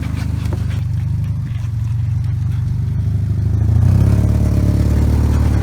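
Car engine running at low revs with a steady low drone, pulling a little harder and louder about four seconds in, as the car is moved on a freshly blown passenger-side tire.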